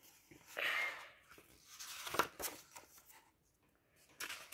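Pages of a hardcover comic book being turned by hand: a paper swish about half a second in, then fainter rustles, and a short one near the end.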